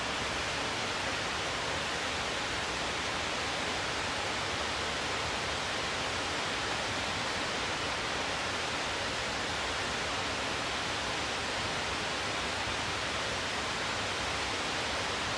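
Snowmelt water pouring over a dam as a waterfall: a steady, even rush that does not change.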